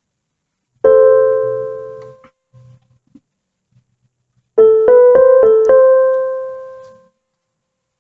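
Solo piano-voiced keyboard. A chord is struck about a second in and left to ring and fade. After a pause, a quick phrase of a few notes is played near the middle, and its last chord is held and fades out.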